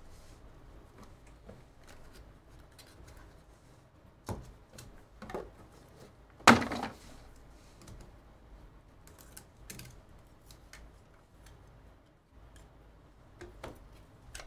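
Trading cards and clear hard-plastic card holders being handled on a table: scattered light clicks and taps, with one louder knock about six and a half seconds in.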